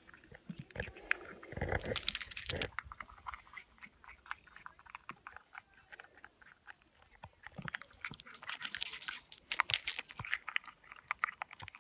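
A squirrel gnawing and crunching hazelnuts held in a hand: a rapid patter of small cracking clicks in two spells, one near the start and a longer one near the end. A couple of low thumps sound near the start.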